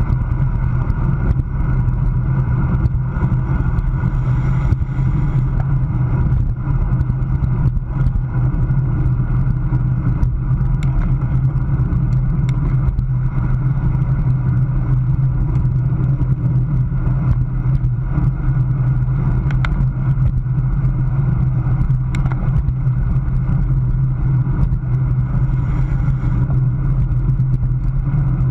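Wind rushing over the microphone of a camera mounted on a road bike moving at racing speed, a steady low rumble together with tyre noise on concrete. A few faint clicks show through it.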